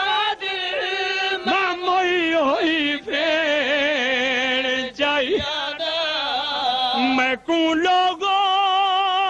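A man's voice chanting a lament in a melodic Punjabi majlis style, holding long notes with a wide vibrato and sliding between pitches, with brief breaks between phrases.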